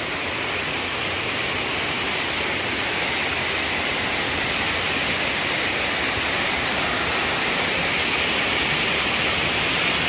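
Steady rushing of a waterfall's water cascading over rocks into a pool, slowly growing a little louder.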